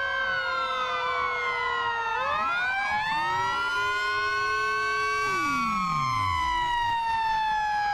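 Several fire engine sirens wailing at once, their tones sliding slowly up and down and overlapping. Near the middle, one low tone drops steeply and dies away.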